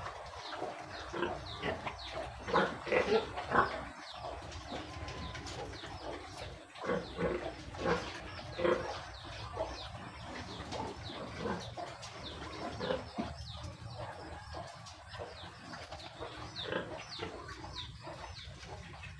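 Pigs grunting in short irregular bouts, loudest about three seconds in and again around eight seconds, over steady high chirping of small birds.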